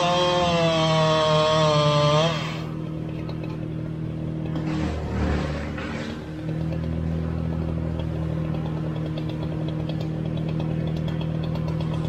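Stihl chainsaw bucking a felled red oak log at full throttle, its pitch wavering under load, cutting out about two seconds in. A compact tractor's engine then runs steadily, with a brief rush of noise about five seconds in.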